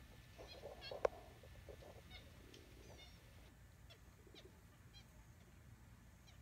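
Capuchin monkeys giving short, high, squeaky chirps, a few every second or so, while foraging. Leaves rustle faintly early on, with one sharp click about a second in.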